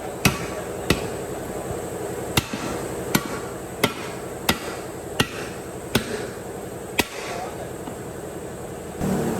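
Hammer blows, nine sharp, ringing strikes at a steady pace of about one every 0.7 s, over a steady background hum.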